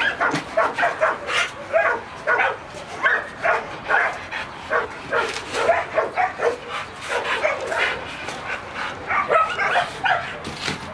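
Dog barking and yipping in quick succession, a couple of calls a second, mixed with whining.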